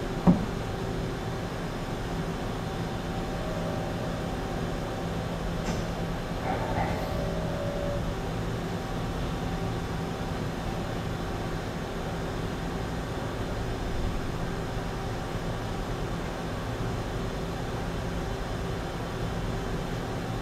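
Mazak Quick Turn 200 CNC lathe running with a steady hum of several held tones. A single sharp knock comes just after the start, and a short higher tone joins in about six to eight seconds in.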